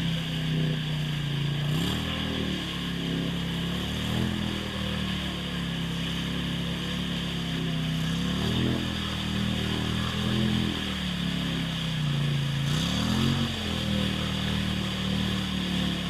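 Polaris Sportsman 1000 ATV engine running, its pitch rising in short revs and dropping back every few seconds, over a steady high hiss.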